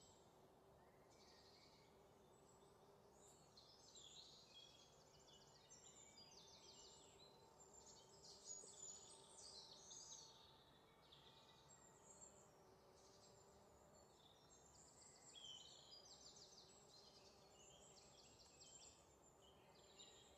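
Faint sizzling and crackling of pakodas deep-frying in hot oil, in irregular high-pitched spatters that come and go.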